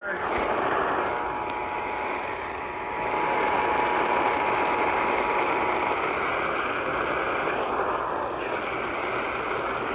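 AM radio receiver giving out steady static on a dead frequency after station KKDD has dropped off the air, starting abruptly. A faint steady whistle sits in the hiss for the first six seconds.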